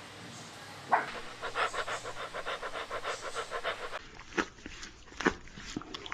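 A puppy panting fast and evenly, about seven breaths a second. After a cut, a few short, sharp sounds follow near the end.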